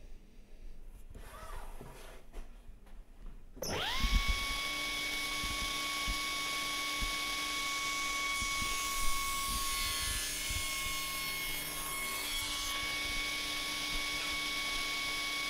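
Table saw switched on almost four seconds in: the motor and blade spin up with a quickly rising whine, then run with a steady high hum while a softwood offcut is pushed through the blade for a trial rebate cut.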